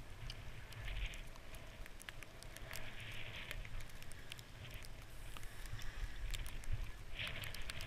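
Skis sliding and scraping over snow, with hissing spells of edge-scrape about a second in, around three seconds and again near the end, over a low rumble of wind buffeting the camera microphone.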